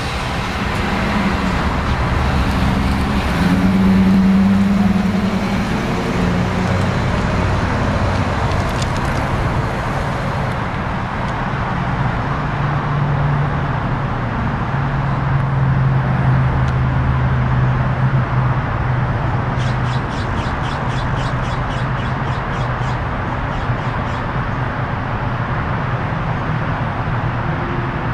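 Ford F-250 Super Duty pickup's engine pulling away, its pitch rising as it accelerates, then running steadily as the truck drives off down the street. A quick run of ticks sounds briefly about two-thirds of the way through.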